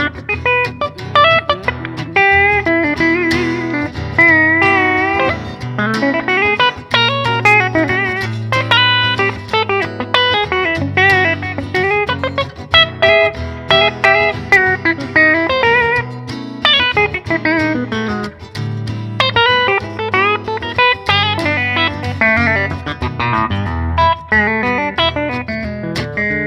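Bluesy electric guitar solo: fast runs of picked notes with bends and wavering vibrato, over a steady low bass line.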